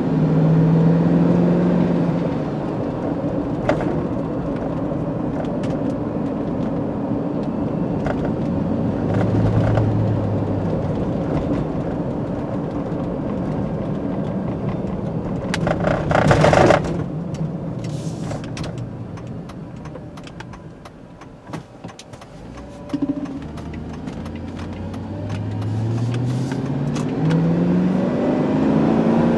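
A GMC Yukon Denali's V8 engine and road noise while driving. Partway through there is a brief loud rushing burst, then the truck eases off and goes quieter, and near the end the engine note climbs as it accelerates.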